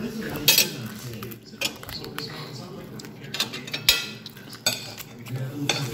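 Cutlery clinking and scraping against plates and a glass baking dish: a handful of sharp, separate clinks, the loudest about four seconds in.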